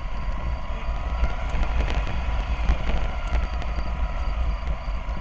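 Steady low engine and road rumble inside a moving Alexander Dennis Enviro400 double-decker bus, with a faint constant whine above it.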